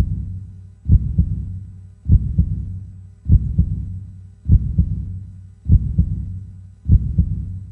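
Heartbeat sound effect: slow, steady lub-dub double thumps, low and deep, about one beat every 1.2 seconds (around 50 beats a minute).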